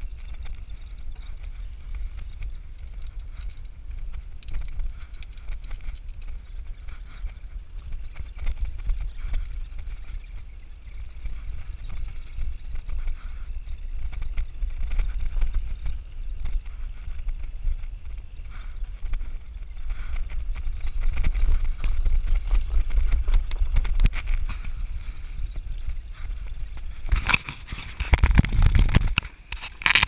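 Wind buffeting the microphone and the low rumble of a mountain bike rolling over a rutted dirt road. Near the end, a louder spell of rubbing and knocking as a hand handles the camera.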